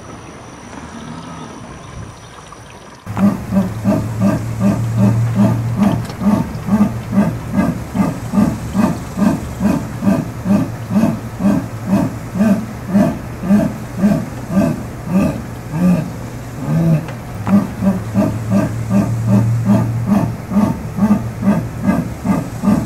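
Jaguar's sawing call (esturro): a long run of coarse, low grunts about two a second, starting suddenly about three seconds in, over a steady low drone.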